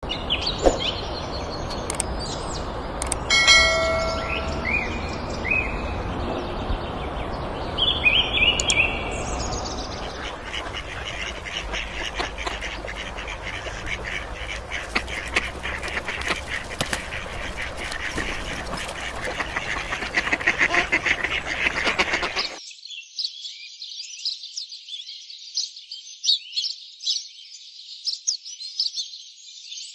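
Birds calling. At first there are separate pitched calls over a steady background noise, then a dense, rapid chatter. About two-thirds of the way through, the sound changes abruptly to high, thin chirps and twitters.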